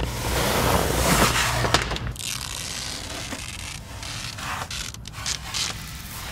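Blue protective plastic film being peeled off a car's interior trim. A long tearing, crinkling rip builds over the first two seconds and is the loudest part. After that come quieter, shorter peeling rips about four and a half to six seconds in.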